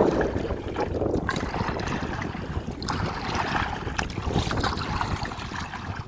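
Wind buffeting the microphone on a small fishing boat at sea: an irregular rumble, with a hiss from the water around the boat.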